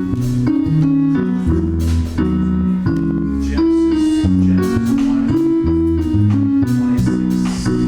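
Live gospel band playing an instrumental passage: guitar over a moving bass line, with regular sharp percussion hits.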